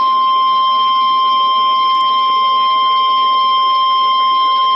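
NOAA Weather Radio's 1050 Hz warning alarm tone, one steady, loud, unbroken tone over faint radio hiss. It is the signal that an urgent alert broadcast follows, here a tornado watch.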